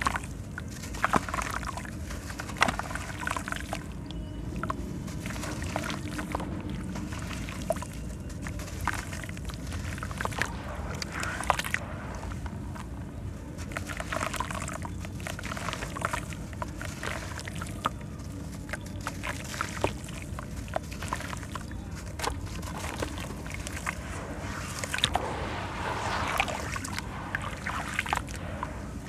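Soft sand-cement block crumbling in wet hands, with gritty crackling as it breaks and crumbled sand falling into shallow water in a plastic basin, sloshing as the hands work it. Near the end the hands knead wet sand in the water.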